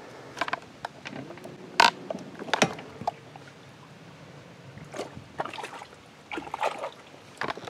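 Scattered knocks and splashes from a small boat being moved across the water, with the sharpest knock a little under two seconds in.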